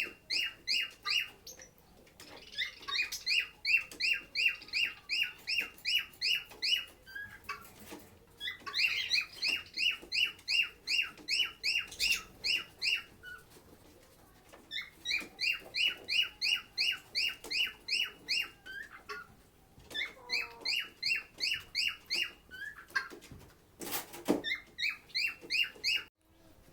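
Lovebird chirping in fast runs of sharp, evenly spaced chirps, about four or five a second, each run lasting a few seconds with short pauses between. A brief sharp knock comes near the end.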